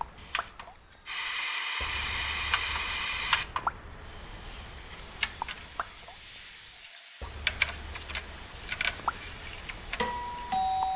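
Plastic clicks and clacks of a cassette tape being handled and pushed into the open tape deck of a Panasonic SA-CH46 compact stereo. Loud hiss fills a couple of seconds near the start, and steady tones come in near the end.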